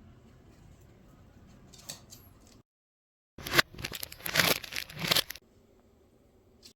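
Short bursts of crinkling and clicking handling noise, bunched together over about two seconds after a moment of dead silence.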